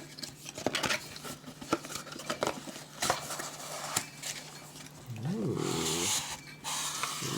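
A cardboard gift box being opened and its packaging handled: a run of irregular clicks, taps, scrapes and rustles. A short voiced "ooh"-like sound comes about five seconds in.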